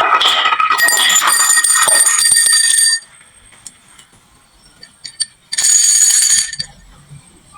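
Glass marbles clattering through a wooden toy marble run, with bright bell-like ringing and clinking. It stops abruptly about three seconds in, leaving a few light clicks, then a second short burst of ringing clatter comes just past the halfway point.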